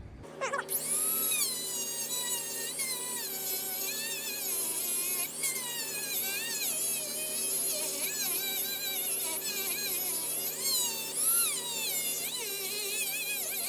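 Handheld rotary tool with a sanding drum grinding the aluminium crankcase of a Kawasaki KX125 two-stroke, enlarging the cylinder opening to clear a 144 big bore cylinder. A steady high whine whose pitch sags and recovers as the drum is pressed against the metal; it starts about half a second in.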